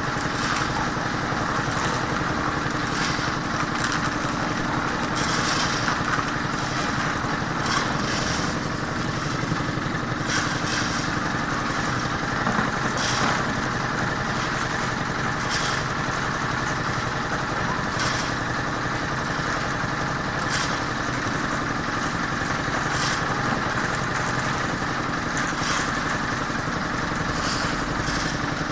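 Engine of road-construction machinery running steadily, with short sharp noises every second or two over it.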